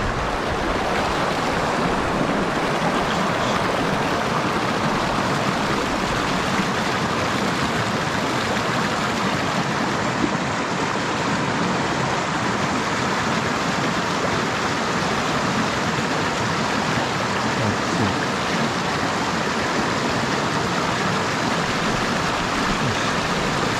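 Mountain stream rushing over and around boulders, a steady, even rush of white water.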